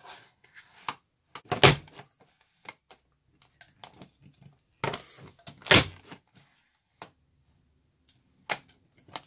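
Creative Memories Border Maker punch cutting a dips-and-diamonds border into black cardstock: two loud sharp clunks of the punch, about a second and a half in and again near six seconds, and a smaller one near the end, with soft rustling of cardstock and the punch sliding on the mat between them.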